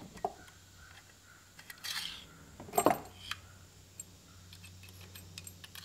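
A manual T50 staple gun being loaded: a few light metallic clicks and scrapes as the spring-loaded pusher rod is drawn out of the magazine, the sharpest click about three seconds in.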